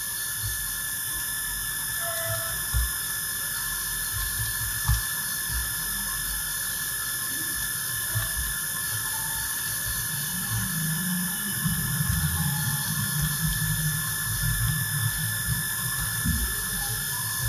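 Steady high-pitched electronic whine over a low hiss, with a few faint soft ticks and a soft low hum in the second half.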